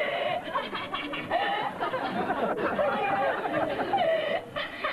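Audience laughing, with several voices chuckling and laughing over one another.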